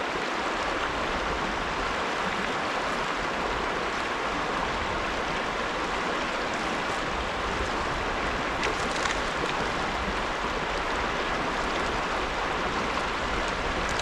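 Small mountain creek flowing and babbling over rocks, a steady rush of water.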